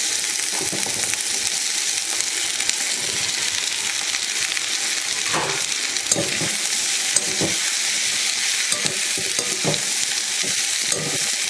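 Freshly chopped okra sizzling in hot oil in a kadai, with a spatula stirring and scraping the pan now and then.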